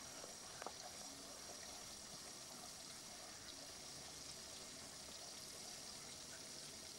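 Faint, steady hiss with no distinct sound event, and a small click just after the start.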